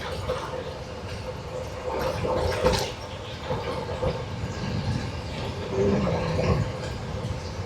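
Wind rushing over the microphone and road-bike tyres rumbling on the pavement while riding at speed: an uneven low rumble that swells and fades, with a faint steady hum.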